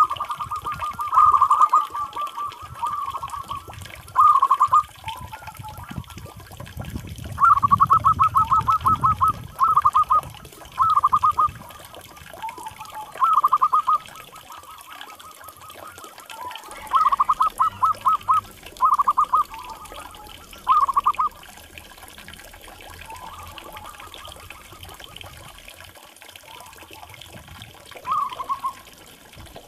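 Zebra dove (perkutut) cooing: short phrases of quick, stuttering coos repeated every few seconds, with a longer pause in the middle. A low rushing noise sits underneath for a few seconds partway through.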